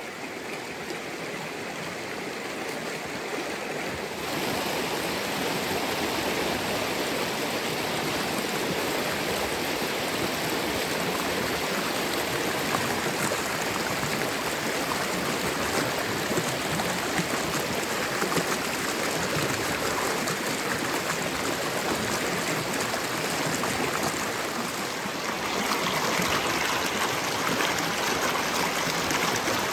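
Shallow creek riffle rushing steadily over rocks, a little louder from about four seconds in.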